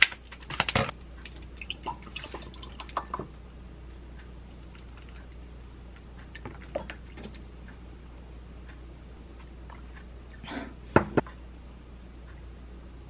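Scissors snipping open a paper almond milk carton, then almond milk poured into a glass. About eleven seconds in there are two sharp glass clinks as a shot glass of espresso is tipped over the glass to pour.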